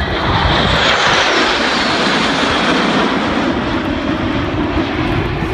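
F-16 fighter jet noise, loud and steady, as a jet flies past, the pitch sliding lower toward the end.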